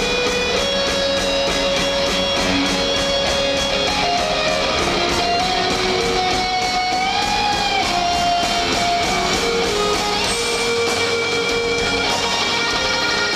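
Rock band playing live, heard from the stands of an arena: electric guitars over steady drums, with a melody of held notes, one of which bends up and back down about seven seconds in.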